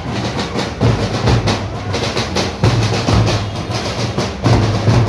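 A marching drum band playing in the street: large bass drums struck with mallets alongside snare-type side drums, beating out a loud, driving rhythm.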